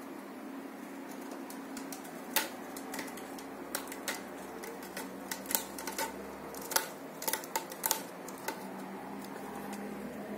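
A cat's claws scratching and catching on a sisal rope scratching post: a run of irregular sharp scratches and clicks, starting about two seconds in and dying away near the end.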